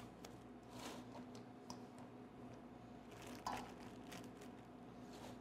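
Faint handling sounds of gloved hands and a plastic zip-top bag: soft rustles and small clicks, with one short, slightly louder squeak about three and a half seconds in.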